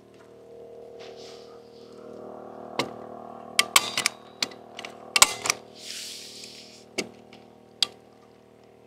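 Staple gun firing into house wrap on wall framing: about a dozen sharp clicks at uneven intervals, several in quick runs, with a soft rustle of the wrap about six seconds in.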